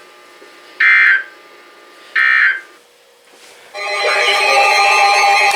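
Two short bursts of EAS SAME digital data tones, the raspy end-of-message signal that closes an alert, about a second and a half apart. About four seconds in, music starts.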